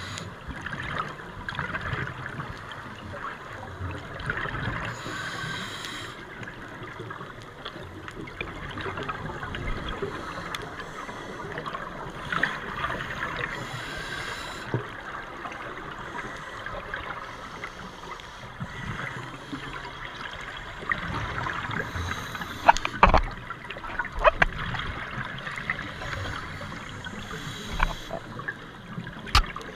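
Underwater sound on a scuba dive: a diver's exhaled bubbles gurgling out in bursts every few seconds over a steady crackling hiss. A few sharp clicks come about three-quarters of the way through and once more near the end.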